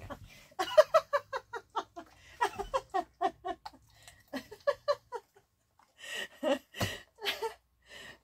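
A woman laughing in a quick run of short "ha-ha" giggles, about four or five a second, trailing off into a few breathy puffs near the end.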